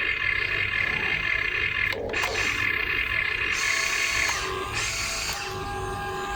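Small electric motors and gearboxes of RC construction models whirring, with a steady high whine that changes pitch a few times and breaks off sharply about two seconds in.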